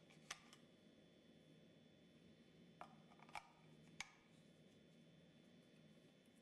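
Near silence with about four faint, sharp clicks and taps from handling the lid of a Bosch VitaBoost blender jug, spread over the first four seconds.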